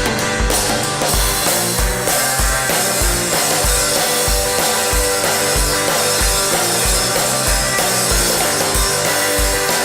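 Live band music without vocals: an instrumental passage of a song, with a steady kick-drum beat of about three beats every two seconds under sustained pitched instruments.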